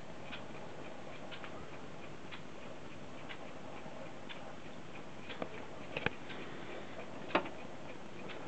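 Mechanical alarm clock ticking about once a second over a faint steady hiss. A few louder clicks come past the middle, the sharpest about three-quarters of the way through.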